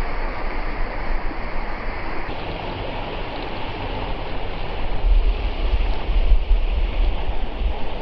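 Rushing mountain creek water running steadily over rocks. From about five seconds in, gusts of wind buffet the microphone with a low rumble.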